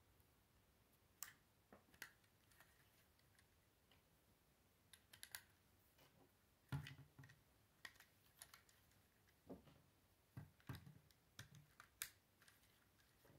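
Lego plastic bricks clicking and rattling as small pieces are handled and pressed onto a model, a scatter of sharp irregular clicks with a few duller knocks.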